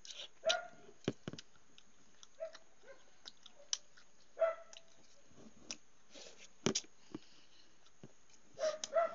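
Eating sounds from a balut mukbang: smacking and chewing clicks. Several short, high-pitched yips from a dog come in between.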